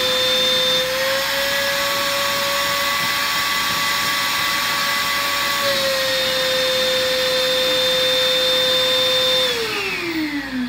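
Small wet/dry shop vacuum running with a steady whine as its hose nozzle is worked over a rug, the pitch shifting slightly twice. About nine and a half seconds in it is switched off and the whine falls in pitch as the motor spins down.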